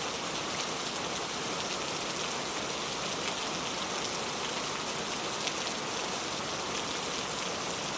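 Gentle rain falling steadily: an even hiss with a few faint drop ticks scattered through it.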